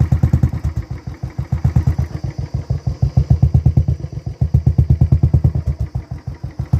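Royal Enfield Bullet 350's single-cylinder engine running through an aftermarket dolphin silencer, revved with several throttle blips between spells of slower thumping. The exhaust is very loud with heavy bass.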